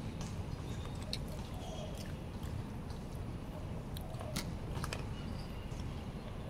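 A person eating: chewing, with scattered light clicks of a plastic spoon against a plastic food container, over a steady low background rumble.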